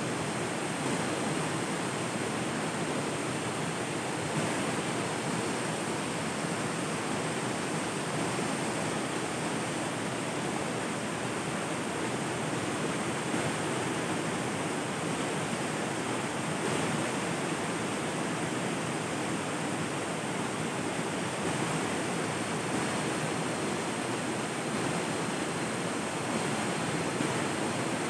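Flowing river water, a steady, even rushing that does not change.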